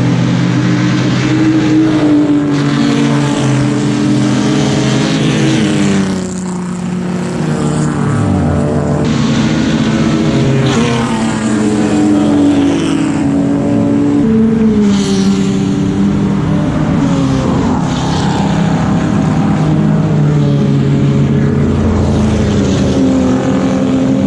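Race car engine running hard on track, its pitch rising and falling again and again as the revs climb and drop.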